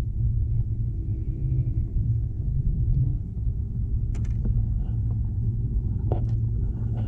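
Wind buffeting the microphone: a steady low rumble, with a couple of light knocks about four and six seconds in.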